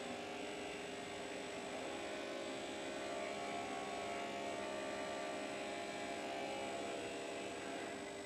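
FERM bench grinder running with its felt polishing wheels, a metal workpiece held against the spinning felt wheel: a steady motor hum with a rubbing hiss, a little louder through the middle.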